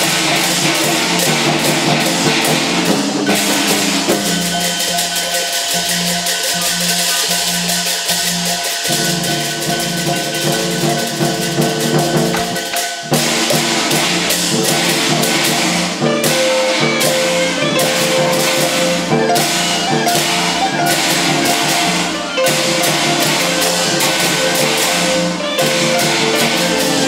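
Teochew big gong-and-drum ensemble playing: suona reed horns carry the melody over a large drum, gongs and small cymbals struck in a busy, steady rhythm.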